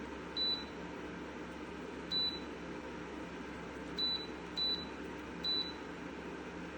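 QEXREED PTC fan heater's control panel beeping: five short, high single-tone beeps at uneven intervals as its buttons are pressed, over a steady airflow hiss.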